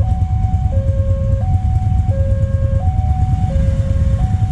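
Railway level-crossing warning alarm sounding its two-tone electronic chime, a low and a high note alternating, each held under a second. Underneath, louder, is the deep rumble of a passing KRL electric commuter train and motorcycles waiting at the crossing.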